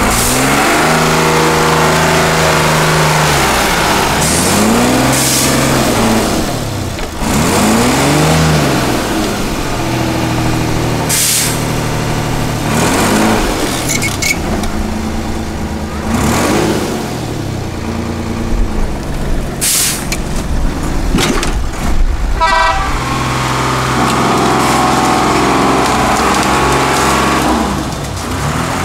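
6x6 Praga trial truck's engine revving hard in repeated swells, its pitch rising and falling as it claws up steep off-road banks, with stretches held at high revs near the start and end. A quick run of clicks about three-quarters of the way through.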